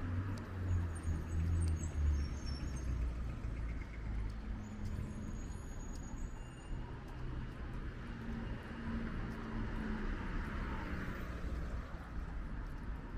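City street traffic: motor vehicles running and passing, with a deeper engine rumble loudest in the first two seconds over a steady traffic hum.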